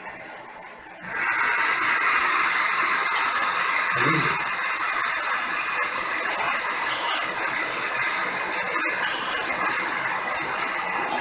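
Washing machine running with a steady hissing noise that starts abruptly about a second in, with a brief lower sound about four seconds in.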